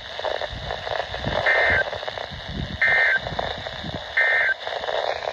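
Three short two-tone data bursts about 1.4 seconds apart: the NOAA Weather Radio SAME end-of-message code, marking the end of the alert broadcast. Steady radio hiss runs underneath.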